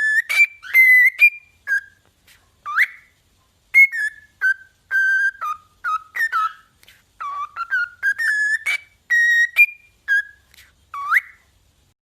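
Parrot whistling a quick string of short, clear notes, with two sharp upward-swooping whistles and small clicks between the notes.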